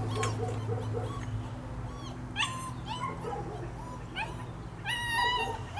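German Shepherd puppy whining and yelping in a few short, high cries, the longest near the end, while pinned on its back: it is protesting being held down in the restraint part of a puppy aptitude test.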